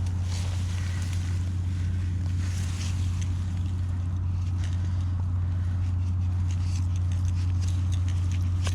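A steady, unchanging low hum of a running motor or engine, with a light hiss of wind and a few faint ticks in the second half.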